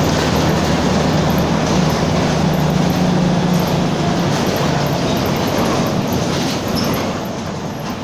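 Mercedes-Benz OF-1722M bus under way, heard from on board: the engine runs and the differential growls as a steady low drone, easing off near the end.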